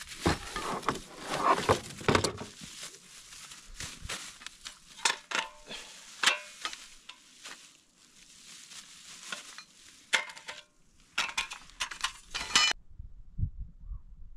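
Clattering of handled objects: a busy run of clinks, knocks and scrapes that cuts off suddenly about two seconds before the end, followed by a few faint low thumps.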